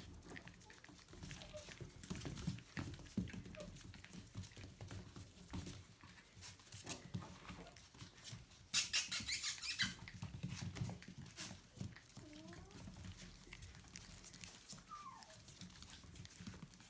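Aussiedoodle puppies playing: scattered scuffling and pattering of paws, with a louder scuffle lasting about a second near the middle and a couple of short high squeaks later on.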